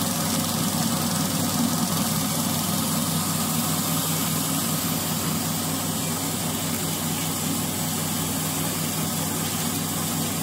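Lollipop stick extrusion line running: a steady machine hum with a constant hiss over it.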